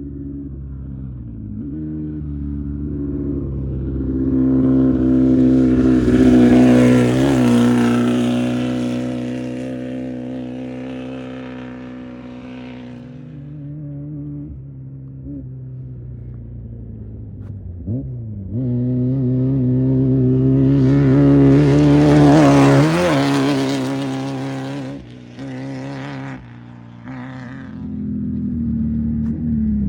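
Off-road race vehicles passing at speed, engines revving hard: one swells to a peak about a quarter of the way in and fades away, and a second comes up after the middle, peaks about three-quarters through, and drops off with a couple of gear changes near the end.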